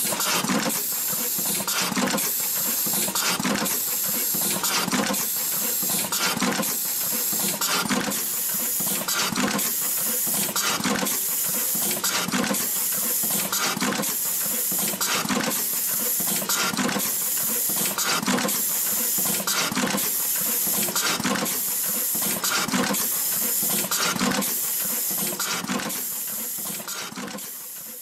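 Automatic wire-crimping machine running its cycle, repeating about every second and a half: each cycle a burst of compressed-air hiss with a low thud from the crimp press. The noise fades out near the end.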